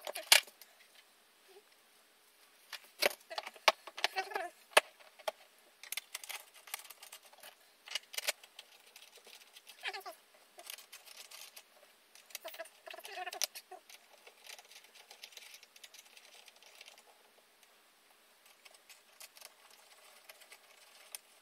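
Gaming-chair parts being handled and fitted by hand: scattered clicks, taps and rustles of the armrest and fittings, with a sharp knock about half a second in and another cluster about three to four seconds in, growing sparser and quieter toward the end.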